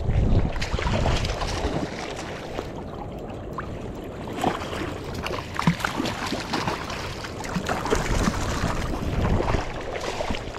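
Wind buffeting the microphone in gusts over the rush of river water, with a few short sharp clicks.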